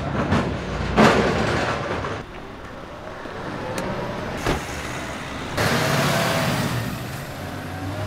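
Car sounds: a car door shutting with a sharp knock about four and a half seconds in, then the car's engine and tyres as it drives off, louder for a second or two.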